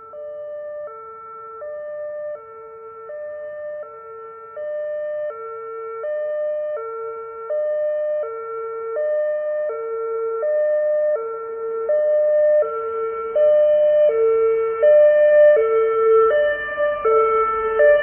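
Two-tone emergency-vehicle siren alternating between a low and a high note, each held about three-quarters of a second, growing steadily louder as the vehicle approaches. A low rumble rises beneath it near the end.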